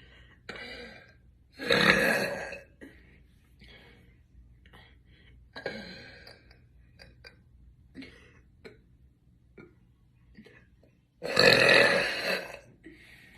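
A woman burping loudly twice, once about two seconds in and again near the end, each burp lasting about a second, with a few quieter short sounds between them.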